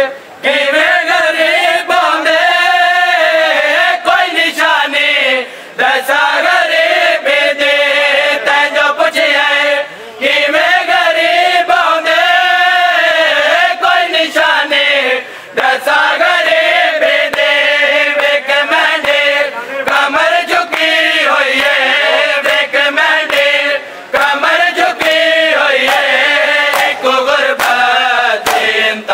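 Men chanting a noha, a Shia mourning lament, in long sung lines with short breaks every few seconds, over the slaps of matam, hands beating on bare chests.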